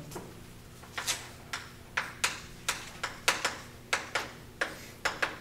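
Chalk writing a word on a blackboard: a quick run of sharp chalk taps and strokes, about three a second, beginning about a second in.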